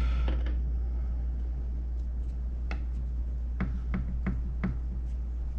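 Light clicks and knocks from a dismantled pressure washer pump being handled on a table: a couple of single clicks, then a quick run of four. A steady low hum runs underneath.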